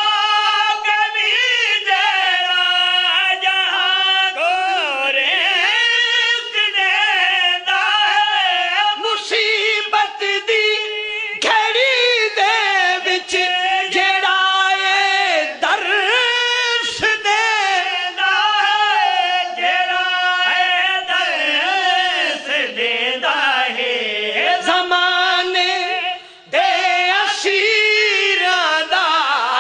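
A man chanting a Punjabi devotional qasida through a microphone, unaccompanied, in a high, strained voice. The lines are long, held and wavering in pitch, with a short breath-pause near the end.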